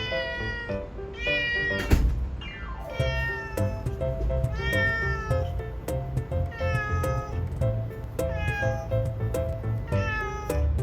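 A cat meowing about seven times, each meow falling in pitch, over background music with a steady beat. A sharp hit and a falling sweep come about two seconds in.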